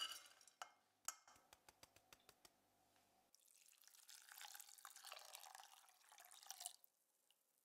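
Damp red split lentils tipped from a sieve into a saucepan in one quick rattling rush, followed by scattered light clicks. Then water is poured into the pan over the lentils, a steady splashing pour of about three and a half seconds that stops abruptly.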